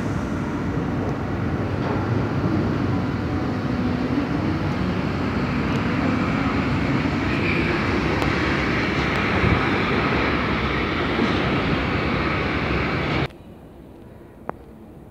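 Munich U-Bahn train moving through the underground station: a steady rumble of its motors and steel wheels on the rails. The rumble cuts off suddenly near the end, leaving a quieter hum with a sharp click.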